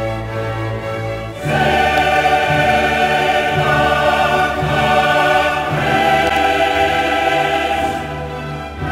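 Background music: a choir singing over an orchestra. It swells much louder about a second and a half in and eases briefly near the end.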